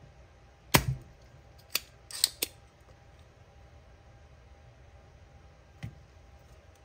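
Spring-loaded desoldering pump (solder sucker) snapping and clicking as it pulls molten solder off an old relay's pins. There is one sharp snap about a second in, then three smaller clicks over the next two seconds, and one more click near the end.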